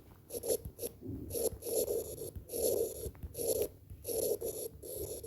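Handwriting: about eight short scraping strokes of a pen across a writing surface.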